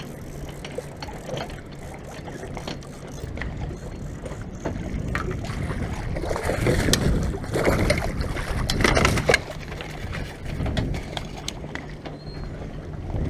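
Splashing and a cluster of knocks, loudest from about six to nine and a half seconds in, as a bowfin is scooped from the lake in a landing net and laid on the dock. Underneath runs a low steady hum with rumbling wind noise.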